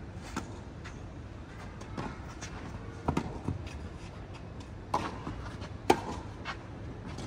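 Tennis ball being struck and bouncing during a rally: a handful of sharp knocks spaced a second or two apart, the loudest about six seconds in.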